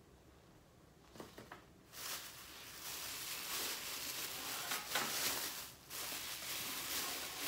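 Plastic packaging bag rustling and crinkling as the stainless-steel oil press is handled and shifted on it, starting about two seconds in after a few light knocks.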